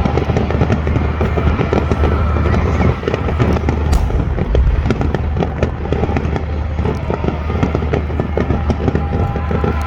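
Aerial fireworks going off in a dense stream of crackling pops, with a heavier boom about four seconds in.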